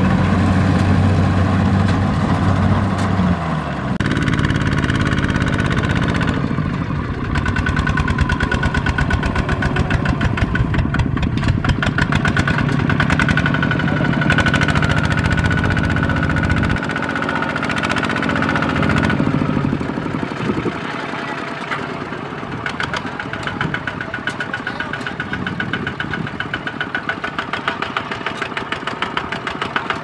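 Diesel engines of two-wheel power tillers chugging steadily with a fast, even firing pulse as they pull loaded trailers through mud. The engine note changes about four seconds in and again a little past halfway.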